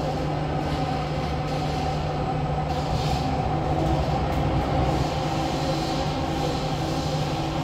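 SMRT CT251 metro train heard from inside the carriage while running between stations: a steady hum of motors and wheels with several whining tones held level. A faint repeating higher tone comes in about halfway through.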